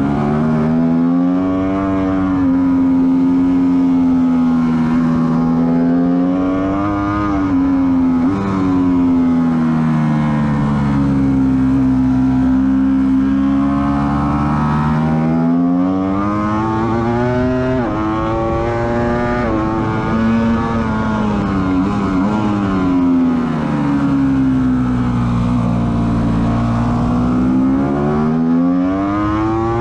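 Ducati sportbike engine heard from a camera mounted on the bike, running hard on track: its pitch climbs under acceleration and falls away when the rider eases off, several times over, with quick breaks at gear changes around 7 to 8 s and again around 18 s.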